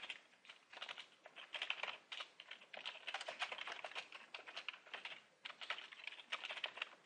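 Computer keyboard being typed on: fairly faint runs of quick key clicks with short pauses between them.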